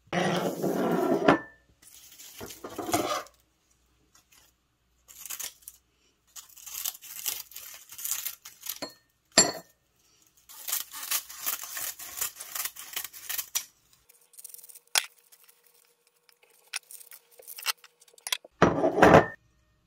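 Plastic wrapping on a pack of dried laver (gim) sheets crinkling and tearing as it is opened. Then the dry, brittle seaweed sheets rustle and crackle as they are handled. Near the end comes a short, loud crunch of kitchen scissors cutting through the stacked sheets.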